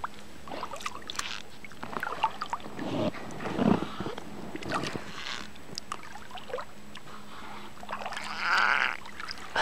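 Beluga whales vocalizing: scattered short chirps and clicks, and a longer, louder call near the end.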